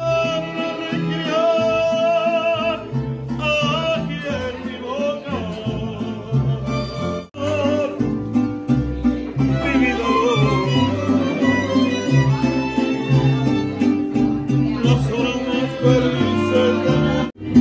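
Mariachi band playing live: violins carrying the melody over strummed guitars. The music breaks off sharply for an instant about seven seconds in and again near the end, where the recording is cut.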